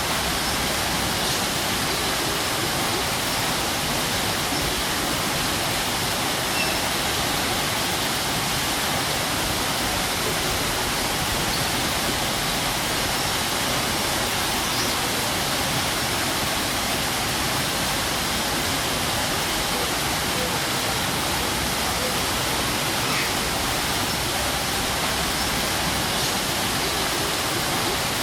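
Strong waterfall: a steady, even rush of heavy falling water.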